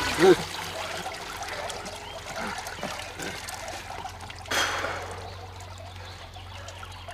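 Water trickling and dripping, with a man's short vocal sound just after the start and a brief rush of noise about four and a half seconds in.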